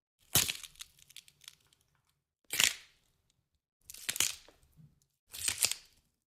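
Four short, sharp crackling noises about a second and a half apart, each lasting about half a second; the first trails off in smaller crackles.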